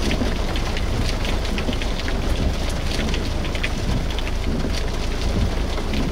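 Rain pattering on a vehicle's windshield and body: many small drop ticks over a steady low rumble.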